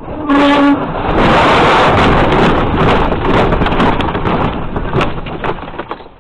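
Tractor-trailer crash heard from inside the cab: a brief pitched tone at the start, then a loud rush of crunching, scraping and clattering debris with many sharp impacts, dying down near the end.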